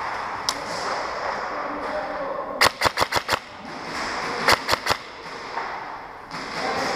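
Airsoft gun firing two quick strings of sharp shots, about six and then about four, each string at roughly seven shots a second, with a short pause between them.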